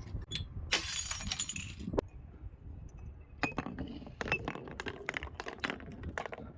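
Glass bottle breaking: a burst of shattering glass about a second in, a sharp crack at about two seconds, then a run of short crunches and clinks of glass pieces.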